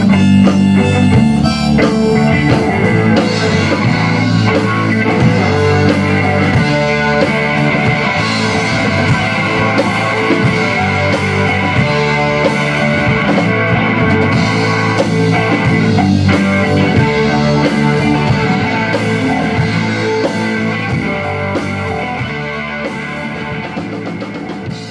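A rock band playing live: electric bass, electric guitar and a Tama drum kit. The sound dies away gradually over the last few seconds.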